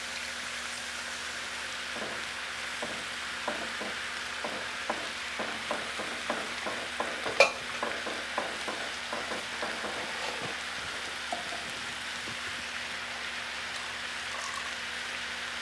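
A wooden spoon stirring milk into a pan of flour and spice roux, knocking against the pan a couple of times a second from about two seconds in until about ten seconds in, with one sharper knock midway. A steady sizzling hiss from the pan runs underneath.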